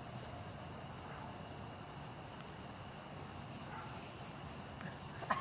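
Quiet, steady outdoor background with a faint high-pitched drone and no distinct events.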